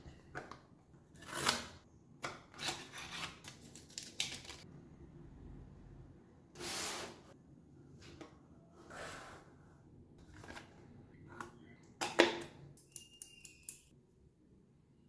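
Phone box and packaging being handled and opened: a run of short rustles, scrapes and light clicks with quiet gaps between them, and a brief high squeak near the end.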